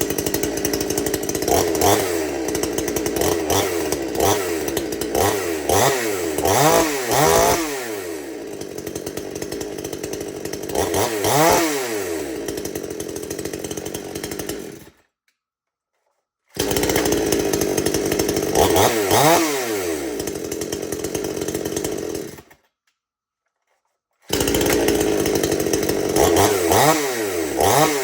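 Two-stroke chainsaw engine idling and being revved in quick blips several times, each rev sweeping up and back down in pitch. The sound cuts out completely twice for a couple of seconds.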